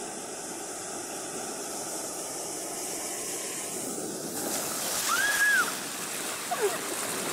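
Surf washing up on a sandy beach: a steady rush of water that swells about five seconds in as a wave washes in. A short, high, rising-and-falling cry sounds as the wave arrives.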